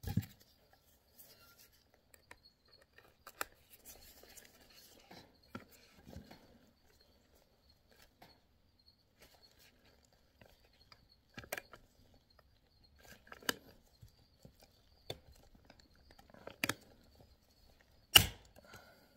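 Hand pop-rivet tool being squeezed to set rivets through a steering-wheel airbag's metal backing: scattered sharp clicks and clacks from the tool's handles and jaws every second or few, with the loudest snap near the end.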